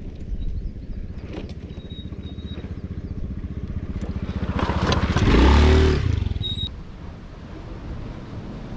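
Small motorbike engine running with a rapid, even beat, getting louder to a peak about five to six seconds in, then dropping away.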